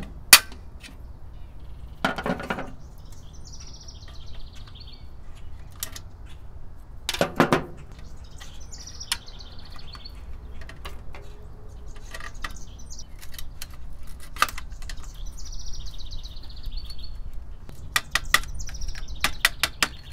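Electrical wires being handled and fed into a metal AC disconnect box: light metallic clicks and two longer rustling scrapes, about two seconds in and about seven seconds in. A bird sings a short high trilled phrase every few seconds.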